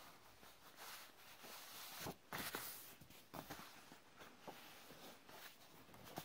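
Faint, irregular rustling of paper leaflet sheets being handled and shifted, loudest about two seconds in.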